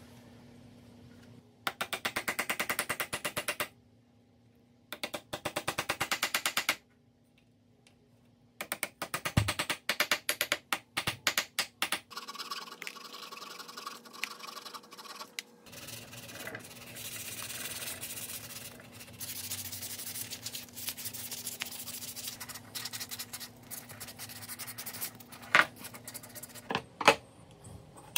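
A walnut wooden mallet being sanded by hand in scratchy back-and-forth strokes. It starts with two short bursts of fast, even strokes, turns to slower, irregular strokes, and then settles into a longer, steadier stretch of rubbing, with a few sharp knocks near the end.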